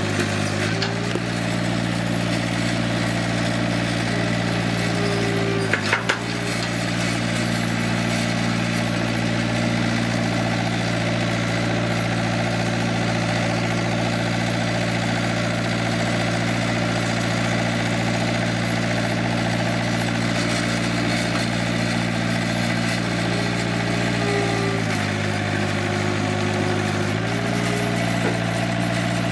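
An engine running steadily with a deep hum, its tone shifting slightly a few times; a couple of sharp knocks about six seconds in.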